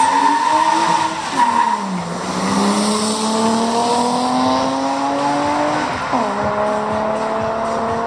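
Two cars launching in a drag race, a BMW E30 one of them, accelerating hard: the engine note climbs, drops at a gear change about two seconds in, climbs steadily again and drops at a second shift about six seconds in before rising once more.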